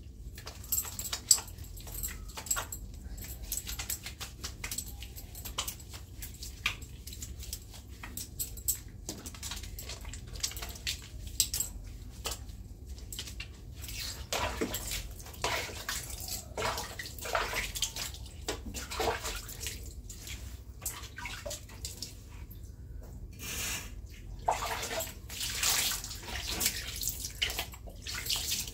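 Water splashing and pouring as a person bathes, in irregular splashes that come heavier and more often in the second half.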